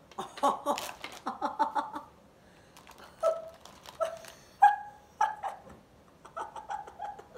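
A dog barking: a quick run of short yaps, then four single barks about two-thirds of a second apart, then another short run of yaps near the end.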